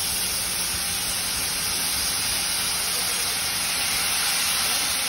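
Steam hissing steadily from a DRG class 52 steam locomotive's open cylinder drain cocks, a continuous loud jet of venting steam with no exhaust beats.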